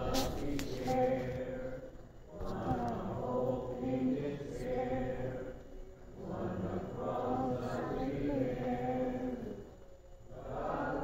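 Congregation singing a hymn without accompaniment in slow, chant-like phrases, with short pauses for breath about two, six and ten seconds in.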